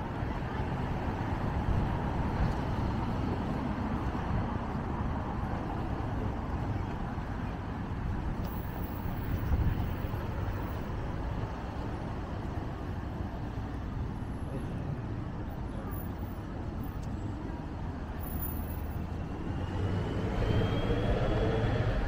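Steady road traffic passing on a city street. Near the end a vehicle passes close, louder, with its engine and a high whine that rises and falls.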